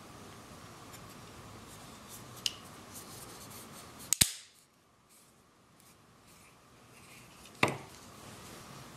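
The plastic case halves of an MK808B Android mini PC stick snapping together with one sharp click a little past the middle, after a faint tick earlier. Near the end comes a second sharp knock as the stick is put down on the table.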